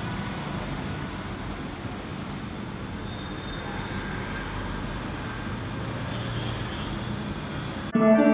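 Steady street ambience of traffic noise. Near the end, background music starts suddenly.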